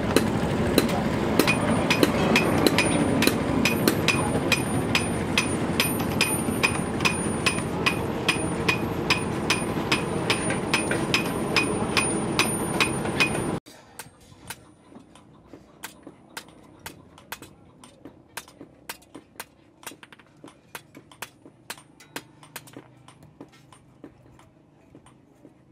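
Blacksmith's hammer striking steel on an anvil in a steady rhythm, about three ringing blows a second, over a loud steady rushing noise. About halfway through the rushing noise cuts off abruptly, and quieter hammer blows continue.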